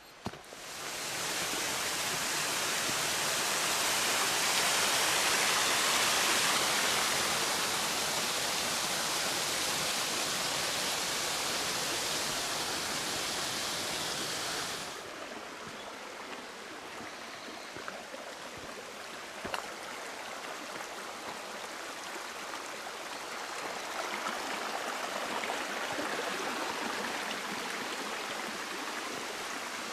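Rushing water of a mountain stream, a steady hiss that swells in the first second and drops abruptly to a quieter, softer rush about halfway through.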